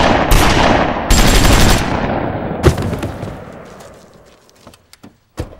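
Gunfire in a staged skit: a loud burst of rapid shots over the first two seconds, one more shot at about two and a half seconds, then the echo dies away. The burst is the shooting that wounds someone, so that a friend then offers a hospital ride.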